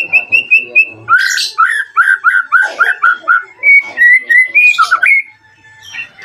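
White-rumped shama (murai batu) singing: quick runs of repeated whistled notes, about four a second, each run at a different pitch, stopping about five seconds in. This is the shama's call to a rival.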